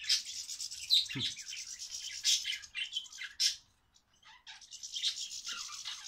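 Budgerigars and goldfinches chirping and twittering in a dense run of short high calls, with a brief pause about four seconds in.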